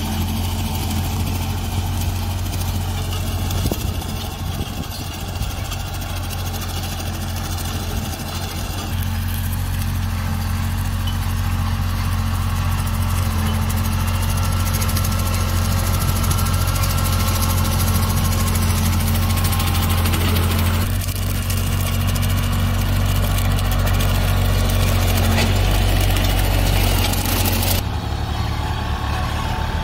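Bobcat CT20-series compact diesel tractor running steadily at working speed, driving a rear rotary cutter (brush hog) through tall grass. The engine note shifts slightly a few times and changes near the end.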